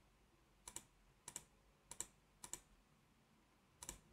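Five faint clicks of a computer mouse, each a quick double tick, about one every half second with the last near the end, over near silence.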